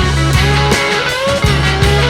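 Rock background music with guitar over a bass line and a steady drum beat.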